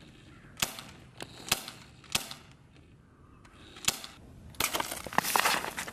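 Four sharp shots from a .177 air pistol fired at a metal can, spaced roughly a second apart. About a second later comes a dense rush of noise full of crackles, lasting about a second.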